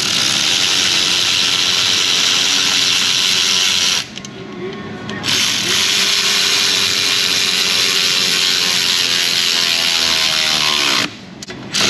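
Air ratchet running down sway bar bushing bracket bolts: a hissing whir at a steady motor pitch. It runs about four seconds, stops for a second, runs about six seconds more, then gives a brief burst near the end.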